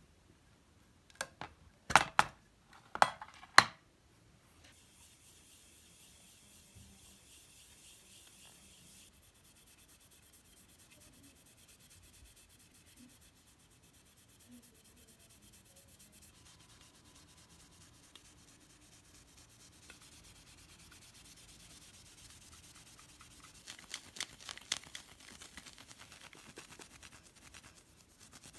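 Handwork on the lantern materials: four sharp knocks in the first few seconds, the last the loudest, then a long faint rubbing. A cluster of small clicks comes near the end.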